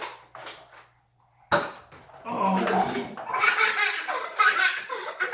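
A sharp snap about a second and a half in, then people laughing and calling out excitedly.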